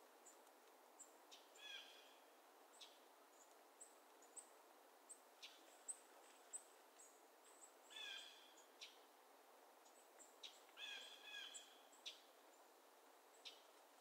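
Several wild birds calling faintly over a steady hiss. Many short, high, thin chips and quick sharp notes come throughout, and harsh, buzzy calls come about two seconds in, again about eight seconds in, and as a quick run of notes about eleven seconds in.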